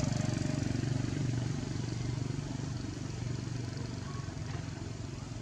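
A vehicle engine idling, a steady low hum that fades slightly toward the end.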